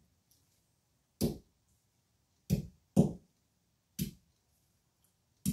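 Green olives being cracked one by one with a stone on a hard board: five sharp knocks at an irregular pace, each a short dull thud.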